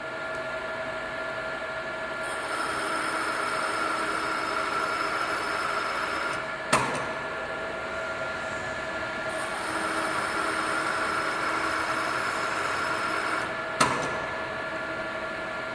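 Knuth SSB 35 Xn drill press running with steady tones from its drive, drilling under automatic power feed: two spells of cutting, each about four seconds long and louder and hissier, each ending in a sharp click.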